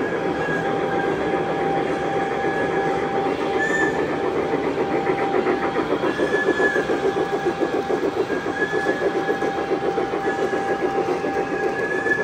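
Model trains running on a layout: a steady whine under a rhythmic clatter of wheels on track, the clatter growing stronger partway through.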